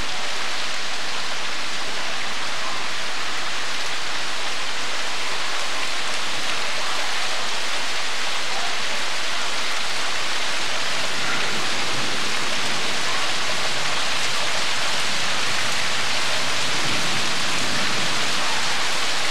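Steady rain falling, heard as an even, unbroken hiss.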